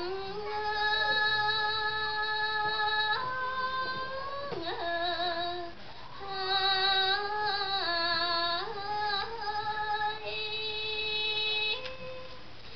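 A woman singing smot, Khmer Buddhist chanted verse, solo into a microphone. Long held, wavering notes step and slide between pitches, in phrases of a few seconds with short breaks between them.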